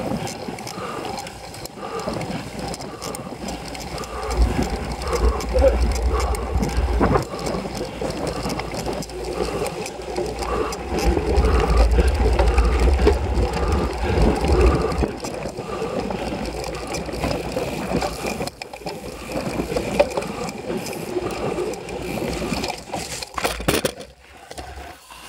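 Cyclocross bike ridden hard over rough grass and dirt, heard from a camera mounted on the bike: steady rattling of the bike and tyre noise, with stretches of low rumble on the microphone.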